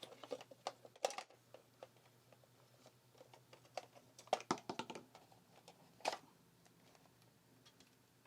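Quiet, scattered plastic clicks and taps as a dust-mite vacuum cleaner's rear filter and casing are pulled out and opened by hand, with small clusters of sharper knocks about a second in, around four to five seconds in, and about six seconds in.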